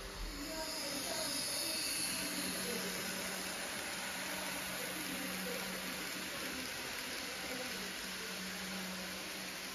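Märklin Z-gauge model freight train running along the layout track: a steady low hum under a constant hiss, with a brief low bump at the start.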